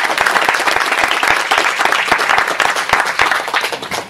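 Audience applauding: many people clapping together, dense and steady, dying away near the end.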